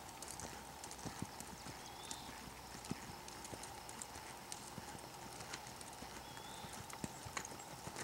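Hoofbeats of a bay horse loping and turning on arena sand, an irregular run of thuds and clicks.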